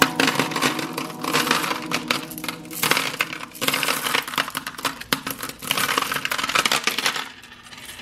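Small pebbles poured from a mesh bag into a plastic bowl, clattering against the bowl and each other in uneven bursts that stop about seven seconds in.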